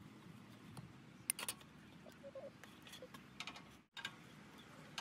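Faint light clicks and taps of a metal fork and spoon against a plastic bowl and plate as scrambled egg is scooped onto a flatbread wrap. The sound drops out briefly at the start and again about four seconds in.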